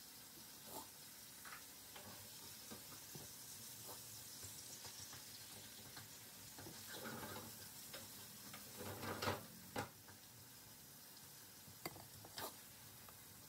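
Faint handling sounds of raw chicken pieces being pushed onto a wooden skewer: scattered small clicks and taps, with two short louder rustles about seven and nine seconds in, over a steady hiss.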